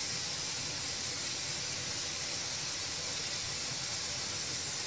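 Steady, even hiss with a faint low hum beneath it. The batter pouring into the dish makes no distinct sound of its own.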